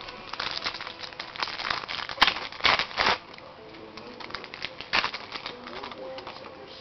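A football card pack's wrapper crinkling and tearing open, with rustling of cards being handled and a sharp click about two seconds in. The crinkling is busiest in the first half and quieter after that.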